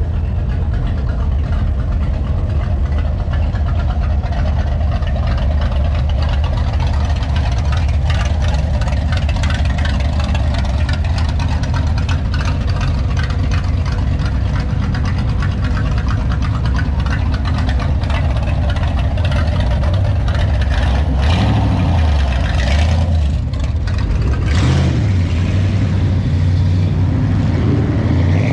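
Muscle-car engine rumbling steadily while cruising, with the revs rising and falling several times near the end.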